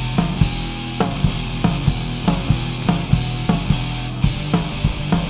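Punk hardcore band playing: a fast drum kit beat of kick and snare with a cymbal crash about every second and a bit, over sustained bass and guitar.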